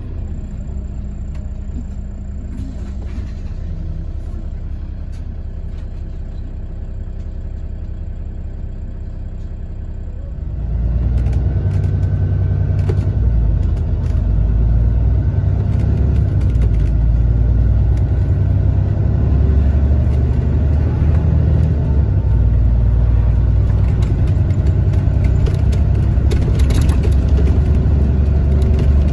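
Scania K280CB Fencer bus's Scania DC07 diesel engine (a 6.7-litre Cummins-based six with a Scania turbocharger), heard from inside the cabin. It runs low and steady for about ten seconds, then the bus pulls away hard and the engine gets much louder under load and stays loud.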